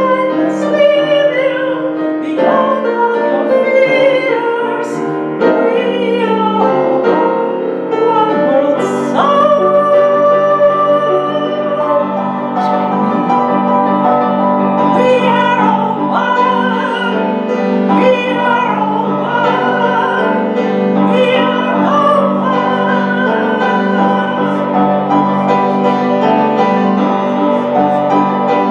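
A woman singing a slow song with piano accompaniment, holding some long notes.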